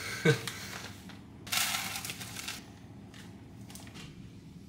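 Dry oats poured from a bag into a glass bowl: a light knock, then a rushing patter of flakes lasting about a second.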